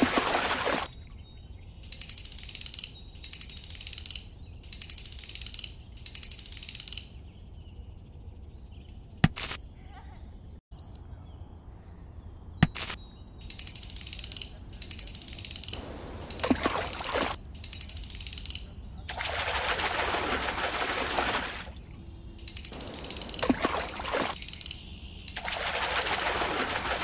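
Water splashing and streaming off a small bamboo lift net as it is raised from a miniature pond with goldfish flapping in it. Loud splashing comes at the start, again in the second half and near the end, with shorter chirping bursts between and two sharp clicks around the middle.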